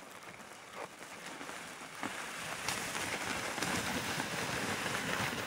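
Plastic sled loaded with fishing gear being pushed over packed snow: a steady hissing scrape that grows louder as it comes closer, with a few crunches of boots in the snow.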